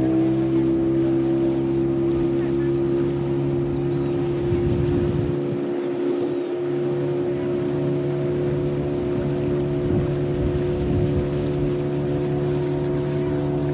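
A small boat's motor running steadily under way, its pitch rising slightly and then holding steady near the start.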